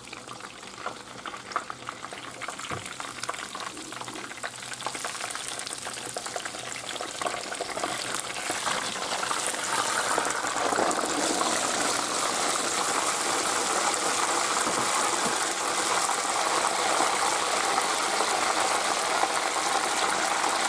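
A breaded beef cachopo frying in hot sunflower oil in a pan, crackling and sizzling. The sizzle grows louder and fuller about ten seconds in, as the cutlet is turned over with tongs.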